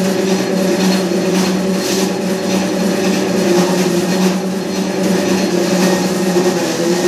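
Kavinstar Jumbo S25 industrial strip-cut paper shredder running with a steady motor hum, its cutters slicing hand-fed newspaper into 6 mm strips with an irregular rustling and crackling of paper.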